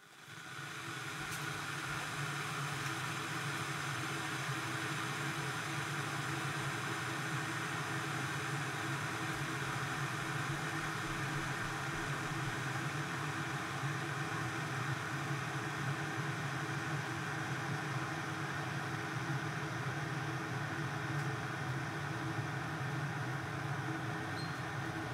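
Glass electric kettle heating water: a steady rushing hiss and rumble that comes in over about the first second.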